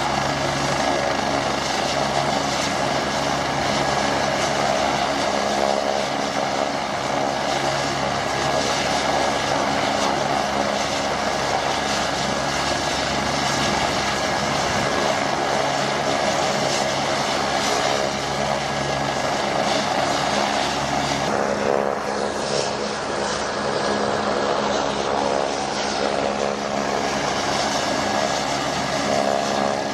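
Agusta AW109 Grand twin-turbine helicopter running on the ground with its rotors turning: a steady turbine whine over loud rotor noise.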